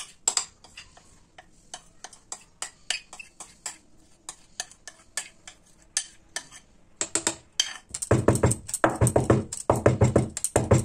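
Spoon clicking and scraping against a bowl as thick cake batter is scraped out into the baking tin. It turns into a run of louder, quicker knocks over the last three seconds or so.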